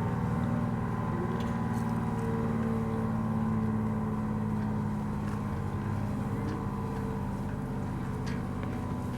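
ACA P-10 outdoor warning siren sounding a low, steady tone of several pitches together, slowly getting quieter.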